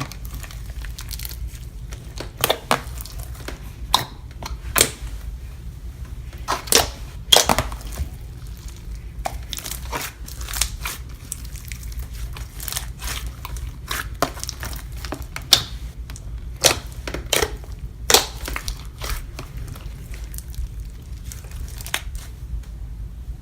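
Half foam slime, glossy slime mixed with foam beads, being squeezed and stretched by hand, giving irregular crisp clicks and crackles. It is a clicky slime.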